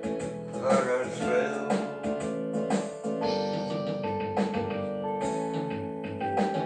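A man singing the last line of a song over guitar and keyboard accompaniment. After about three seconds the singing stops and the accompaniment plays a closing passage of held piano-like notes.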